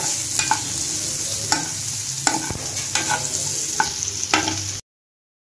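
Diced potatoes frying in oil in a metal frying pan, a steady sizzle, while a metal spoon stirs them and scrapes and knocks against the pan about once or twice a second. The sound cuts off abruptly near the end.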